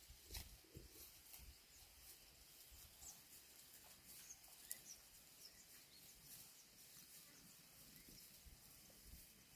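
Near silence: faint outdoor ambience with a few scattered faint high chirps and ticks.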